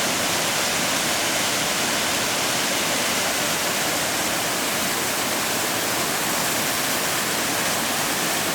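Steady rushing of falling and flowing water from the third Nemouta Waterfall and the Erymanthos River, an even hiss with no breaks.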